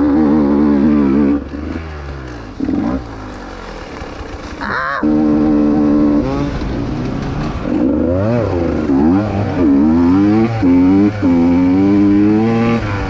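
Enduro dirt bike engine under hard throttle, easing off for a few seconds early on. From about a third of the way in it revs up and down again and again, its pitch rising and falling as the rider works the throttle and gears.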